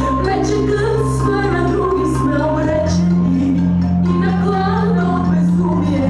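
Upbeat dance music with a bass line and a melody, with a singing voice in places; the bass note changes about three seconds in.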